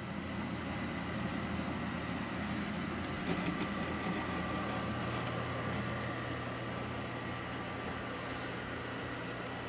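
Desktop PC running: a steady hum and hiss of its cooling fans with a faint high whine.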